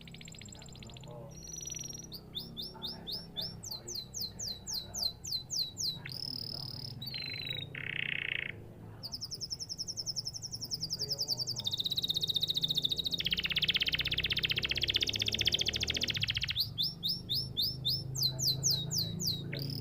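Domestic canary singing. It runs through a series of rapid trills of quickly repeated, high, down-sweeping notes, with a long, fast roll through the middle of the song.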